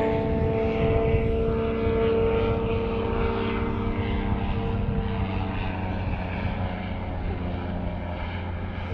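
A boat's outboard motor runs steadily with a humming drone that eases off slightly in the second half.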